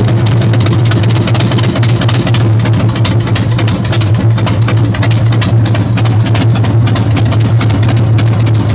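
Big Dog motorcycle's carbureted V-twin engine idling steadily, heard up close at the twin spike air filters.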